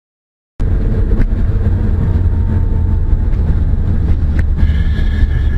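About half a second of dead silence, then a loud steady low rumble of a vehicle on the move, engine and road noise, with a few faint clicks and a faint high tone coming in near the end.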